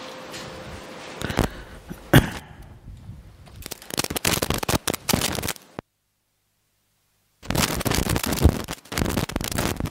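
Paper rustling and crackling as the pages of a spiral-bound book are handled and turned close to a head-worn microphone, after two sharp clicks about one and two seconds in. The sound cuts out completely for about a second and a half in the middle.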